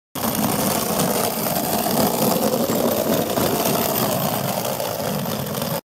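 Suitcase caster wheels rolling over a floor, a steady rumbling rattle that starts and stops abruptly.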